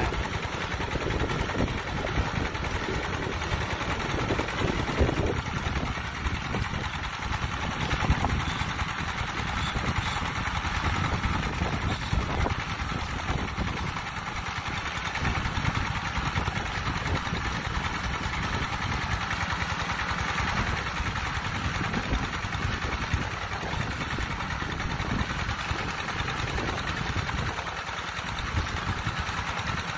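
Single-cylinder diesel engine of a homemade rice harvester built from a two-wheel hand tiller, running steadily as the machine works its way through the rice crop.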